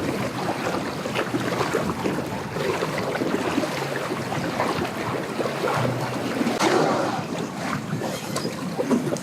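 A boat's outboard motor running at low speed, mixed with strong wind buffeting the microphone and choppy waves splashing against the dock.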